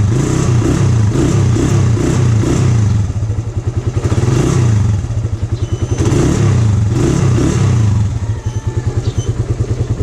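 Suzuki Raider 150 carburetted single-cylinder four-stroke engine running while warming up, its note swelling and easing a few times. It is idling without choke on a mixing screw opened slightly to richen the idle mixture for a cold-weather start.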